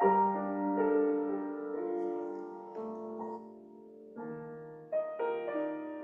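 Piano playing slow, sustained chords, with a new chord struck every second or so.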